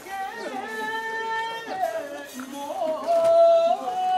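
Kiyari work-song singing for the mikoshi procession: two long, held notes in a melismatic style, each bending and wavering at its end.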